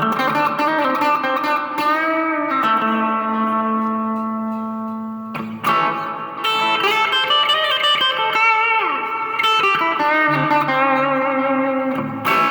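Stratocaster electric guitar played through a clean amp channel with a little reverb: ringing chords and single notes with string bends, and a fresh strum about halfway through.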